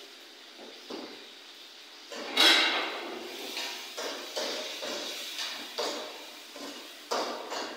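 A spatula stirring in a frying pan on the stove, scraping and knocking against the pan about twice a second. A loud sudden burst about two seconds in is the loudest sound.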